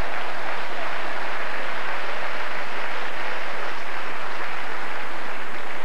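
Live studio audience applauding, a dense steady wash of clapping.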